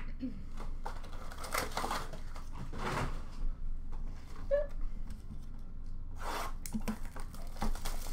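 Trading cards and paper-and-foil pack wrappers being handled: bursts of rustling and crinkling, with a few sharp clicks as cards are set down on a glass counter.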